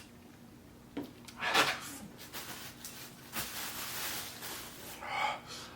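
Plastic takeout containers handled to add green sauce: a click, then rustling and scraping of the lids and cups.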